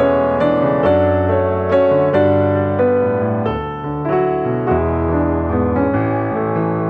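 Background piano music, a melody of single notes struck about two a second.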